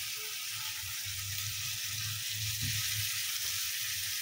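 Minced mutton and spice masala sizzling steadily in a hot frying pan as the wet, freshly washed meat is added by hand, over a low steady hum.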